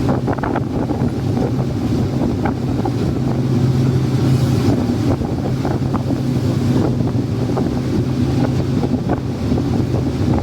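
Boat engine running at a steady pitch, a constant low drone with occasional short sharp ticks over it.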